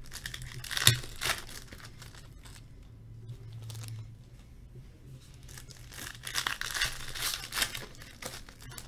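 Foil wrappers of hockey card packs being torn open and crinkled by hand, in two bouts: one about a second in, and another from about six to eight seconds in.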